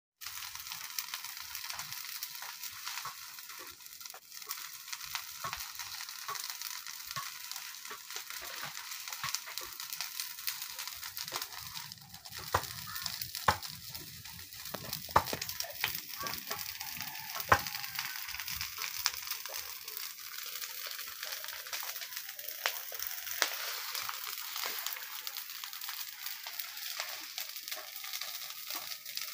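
A pile of dry brush and palm fronds burning, crackling over a steady hiss, with a few louder sharp pops in the middle.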